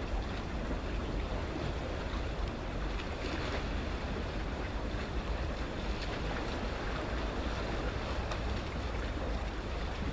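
Steady wind rumbling on the microphone over the soft, continuous wash of small sea waves.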